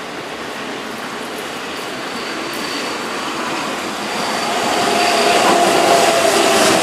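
Keihan 7200-series electric commuter train running toward and past, its rolling noise growing louder over the second half, with a steady whining tone joining in.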